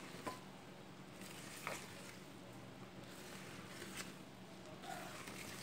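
Silicone whisk stirring thick cake batter in a plastic bowl: faint, soft squishing with a few light taps of the whisk against the bowl.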